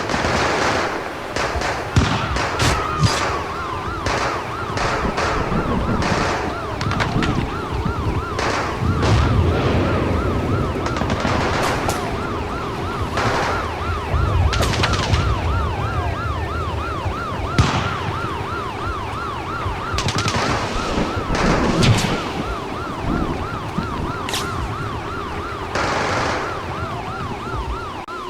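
Emergency vehicle sirens, one a fast yelping warble and another a slow rising and falling wail, layered with scattered gunshots and bursts of gunfire and a few deeper booms.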